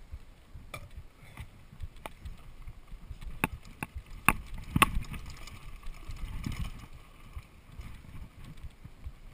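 Mountain bike riding over a wet trail of roots and rocks: tyre rumble from the dirt, with a run of sharp knocks and rattles from the bike about three and a half to five seconds in, loudest near the middle.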